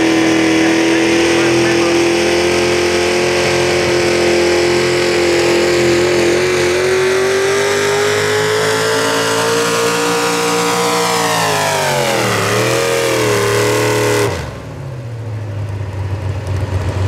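V8 hot rod pulling tractor's engine running at high revs under full load during a pull, its pitch climbing slowly, then dropping and wavering. The throttle cuts off suddenly near the end, leaving the engine at a low idle.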